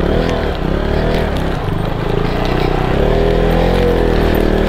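Motorcycle engine revving up and down several times in quick succession, then holding steadier revs for the last second or two.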